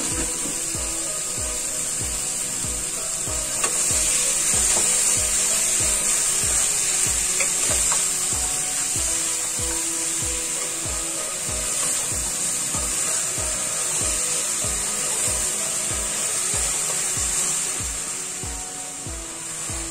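Pork and vegetable cubes sizzling in a hammered metal pan, stirred with a wooden spatula that scrapes and rubs against the pan. The frying is louder from about four seconds in. Background music with a steady beat of about two a second plays throughout.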